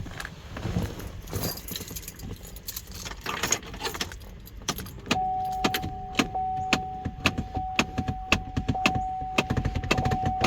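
Keys jangling and rustling at the 2005 GMC Envoy's controls, then about five seconds in a steady high electronic warning tone from the vehicle starts and holds, with a quick run of sharp clicks over it.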